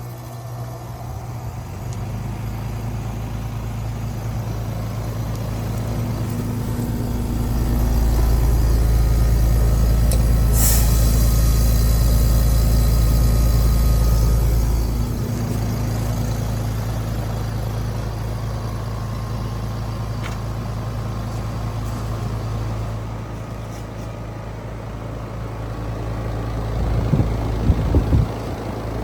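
2016 Trane XR14 4-ton heat pump outdoor unit running in its defrost cycle: a steady low compressor hum that swells louder about eight seconds in and eases off around fifteen seconds. A short sharp hiss comes about ten seconds in, and a few knocks sound near the end.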